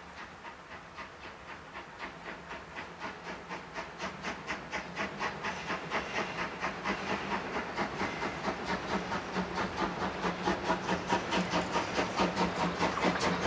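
Class 01 steam locomotive 01 118 working a passenger train, its exhaust chuffing in an even rhythm. The beats grow steadily louder as the engine approaches.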